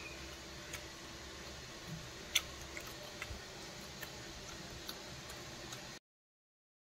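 Faint steady room noise with a few scattered small clicks, one sharper click about two and a half seconds in; the sound cuts out about a second before the end.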